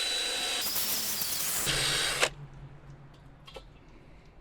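A power tool spinning a hard-bristle wire brush, grinding rust down to bare metal on the inside of a steel grill kettle. It stops suddenly a little over two seconds in, leaving only a faint low hum and a single click.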